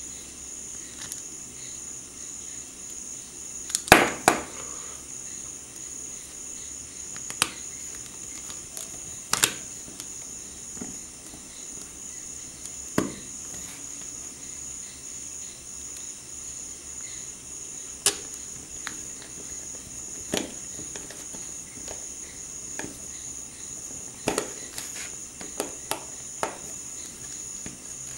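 Small precision screwdriver and tiny screws clicking and tapping against a smartphone's plastic midframe as the screws are fitted, in scattered sharp clicks, the loudest about four seconds in, with a quick cluster near the end as the phone is handled.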